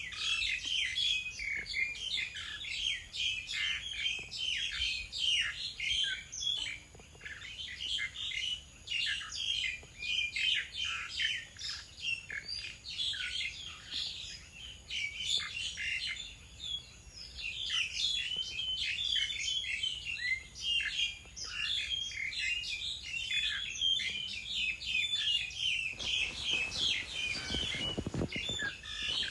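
Small songbirds chirping and twittering in a dense, continuous chorus of short, high calls. A brief stretch of low rumbling noise comes in near the end.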